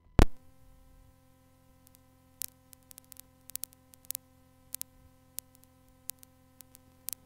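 Cassette tape playback before the music starts: a loud click just after the start, then a faint steady hum and hiss broken by scattered sharp clicks and ticks.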